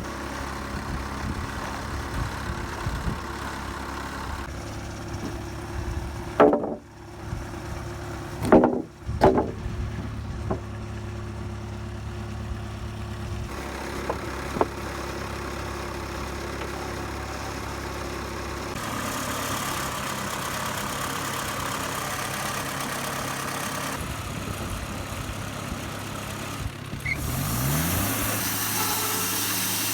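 Wood-Mizer LT40 band sawmill's engine running steadily, with three loud knocks about a third of the way in. Near the end the engine revs up and runs louder under load as the mill goes into a cut.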